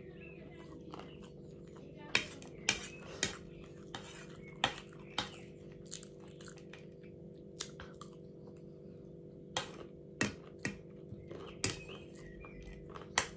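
A spoon clinking against a plate while eating, in irregular sharp clinks from about two seconds in, over a steady low hum.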